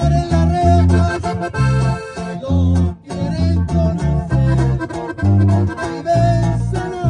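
Norteño band playing an instrumental passage of a corrido: a button accordion carries the melody over plucked strings and bass notes that alternate in a steady bouncing rhythm.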